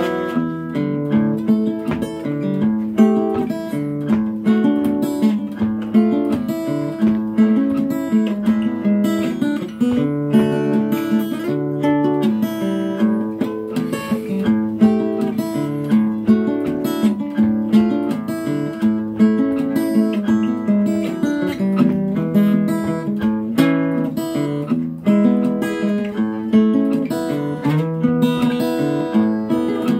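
Acoustic guitar played with a pick: an instrumental passage of picked notes and strummed chords, without singing.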